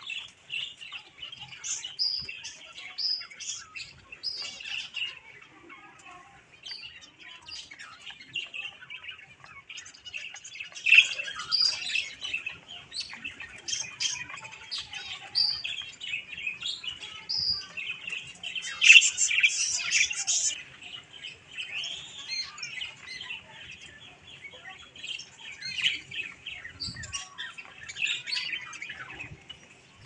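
Budgerigars chirping and chattering, many short calls overlapping without a break, with louder bursts of chatter a third and two thirds of the way through.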